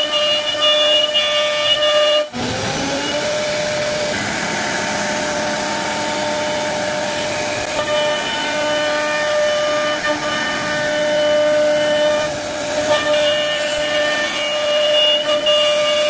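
CNC router spindle whining steadily at a high pitch as its bit cuts a relief pattern into a wooden panel, with a hiss of cutting. About two seconds in the sound breaks off briefly, then the whine slides back up to its steady pitch.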